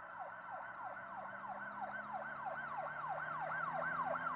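Emergency-vehicle siren, a fast repeating downward-sweeping wail of about three sweeps a second over a low vehicle hum, growing louder.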